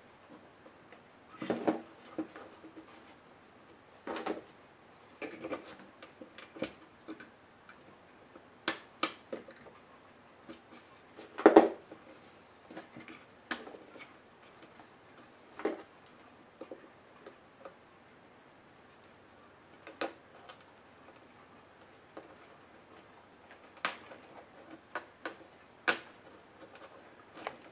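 Scattered clicks, taps and light knocks as the plastic case and motherboard of an Asus Eee PC 701SD netbook are handled and pressed during disassembly, with one louder knock about eleven seconds in.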